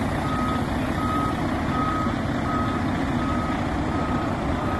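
A tractor-trailer's reverse alarm beeping while the rig backs up: a single steady tone repeating evenly about once every three-quarters of a second, over a constant low rumble.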